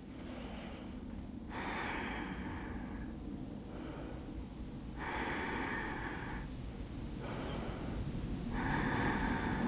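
Slow, deep breathing close to the microphone: three long breaths about three and a half seconds apart, paced yoga breathing held in a stretch.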